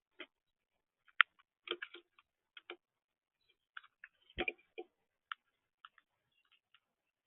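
Irregular short, sharp clicks and ticks, a dozen or so, with a duller thump about four and a half seconds in.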